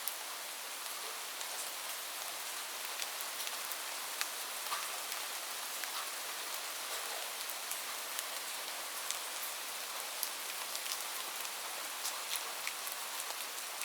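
Steady rain falling, with many separate drops ticking sharply on a surface over the even hiss.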